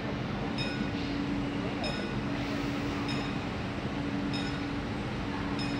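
Steady electric hum from a CAF-UTA 3700 electric light-rail unit standing at the platform. Over it, a short high-pitched electronic beep repeats about every second and a quarter, five times.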